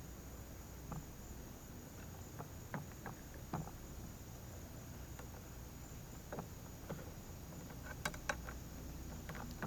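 Light, irregular metal clicks and clinks of an adjustable wrench and pliers working a bolt and nut, the two sharpest coming close together about eight seconds in. Behind them runs a faint, steady, high insect drone.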